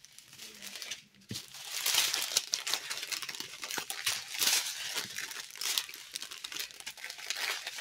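Small clear plastic bags of diamond-painting drills crinkling and rustling in irregular bursts as they are handled and laid out one after another.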